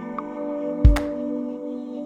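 Background music: held, ambient-sounding tones over a beat, with a drum hit a little under a second in.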